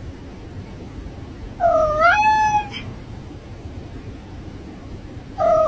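A cat meowing: one long meow about two seconds in, whose pitch dips and then rises and holds, and another starting near the end.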